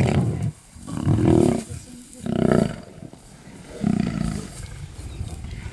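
Lions growling and snarling in a fight, with one lion being mauled by others: a loud growl fading in the first half second, then three shorter rough growls about a second and a half apart.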